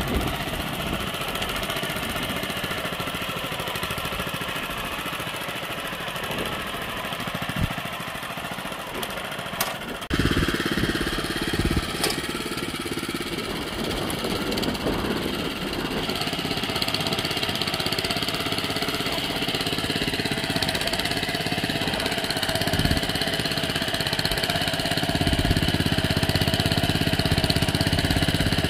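Honda FJ500 DLX rotary tiller's small petrol engine running steadily while its prototype spring tines dig through soil. The tone changes abruptly about ten seconds in, and the engine gets a little louder near the end.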